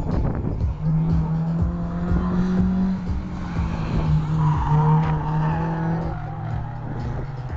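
Honda CR-X race car driving hard past and away into a corner, its engine note holding steady and then dropping slightly about six seconds in. A brief tyre squeal comes about four to five seconds in, as the car goes by.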